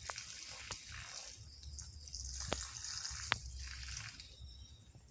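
Water dripping, with a few sharp single drops over a faint hiss.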